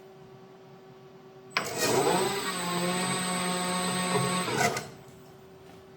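A CNC lathe's spindle motor starts about a second and a half in and winds up to a steady running whine. It runs for about three seconds, then stops abruptly, spinning the newly fitted encoder disc as a test.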